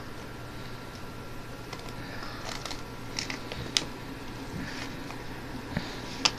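A sheet of paper being handled and creased by hand: soft rustling with scattered sharp crinkles, the sharpest about four seconds in and again near the end.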